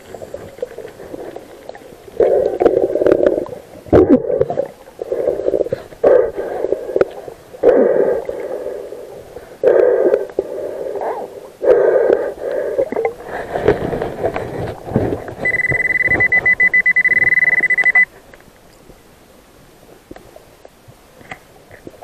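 Underwater: a diver's exhaled breath bubbling out in short bursts every one to two seconds, then an underwater metal detector giving a steady high beep for about two and a half seconds as it signals a target, cutting off suddenly.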